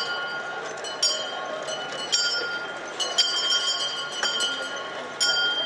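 Metal bells on a walking elephant ringing about once a second in time with its stride, each strike ringing on briefly.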